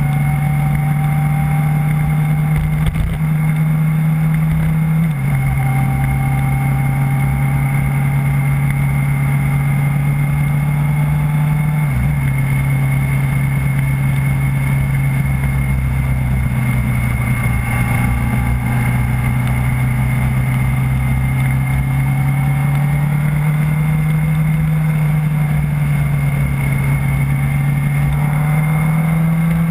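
Onboard engine sound of a road vehicle cruising at an easy pace: a steady engine note that steps down at a gear change about five seconds in, briefly dips again around twelve seconds, then slowly rises and drops once more near the end, over steady road noise.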